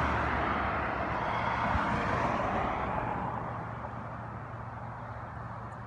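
A vehicle passing on the road, its tyre and road noise fading away over the first three or four seconds, leaving a quieter low hum.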